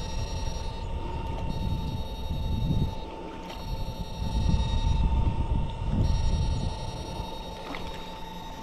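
Steady high whine from a 22-FET electrofishing machine running, with wind buffeting the microphone in low gusts that are strongest in the middle.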